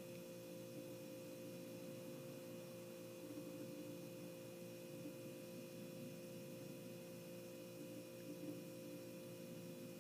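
Faint, steady background hum made of several constant tones, unchanging throughout, with no other clear sound.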